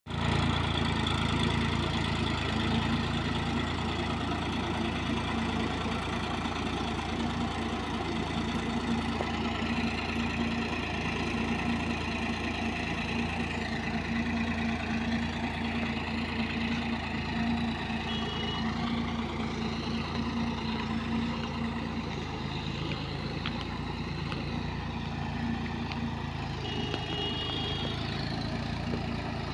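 Ford tractor's diesel engine running steadily under load as it pulls a puddling implement through a flooded paddy field.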